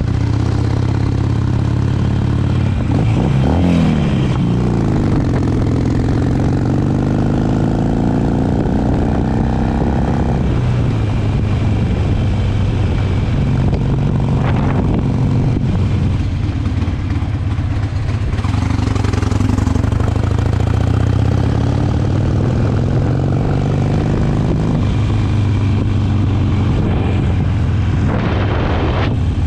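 Harley-Davidson motorcycle's V-twin engine running under way, its pitch rising and falling as the bike accelerates and eases off, with a long climb in pitch a few seconds in.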